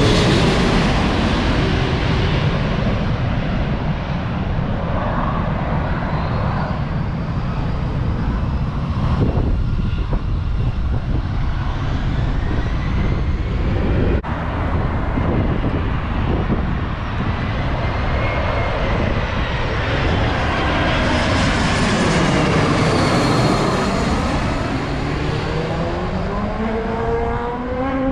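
Jet airliners on final approach passing low overhead. The engine noise is loudest at the start and eases off, and a sweeping whine that falls and then rises comes with another approach late on. Wind buffets the microphone throughout.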